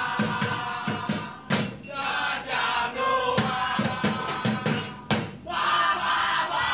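A crowd of young men chanting in unison, football-supporter style, over a steady beat of about three strokes a second struck on plastic water barrels and buckets used as drums. It is a street wake-up call for sahur. The chant dips briefly twice.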